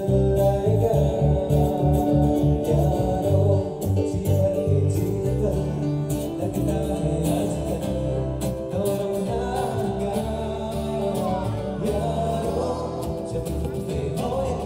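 Live acoustic band music: a man singing to a strummed acoustic guitar and a keyboard, with a steady bass beat.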